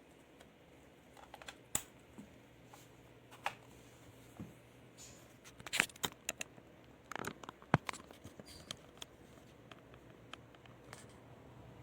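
Scattered light clicks and short rustles of small objects being handled, busiest a little past the middle, over a faint steady low hum.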